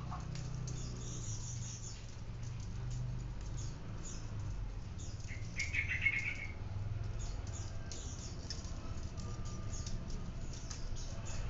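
Light metallic ticking and clinking of steel bicycle spokes being threaded through a hub's flange and knocking against each other, with a short chirp about six seconds in.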